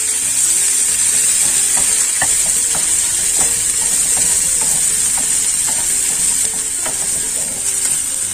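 Ground spice paste and lime leaves sizzling steadily in hot oil in a frying pan while a wooden spatula stirs it, with repeated light scrapes and taps of the spatula on the pan. The paste is being sautéed until cooked.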